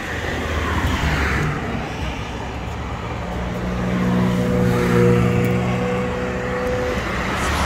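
Street traffic. A car swishes past in the first second or so. From about three seconds in, a vehicle engine hums at a steady pitch for several seconds, and it stops shortly before another car sweeps by near the end.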